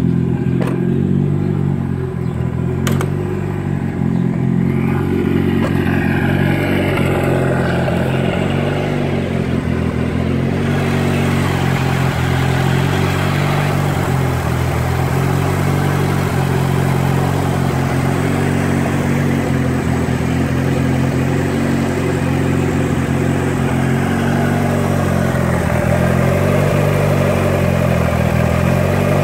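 Mitsubishi Lancer Evolution VI Tommi Mäkinen Edition's turbocharged four-cylinder engine running steadily, with a couple of light clicks in the first few seconds.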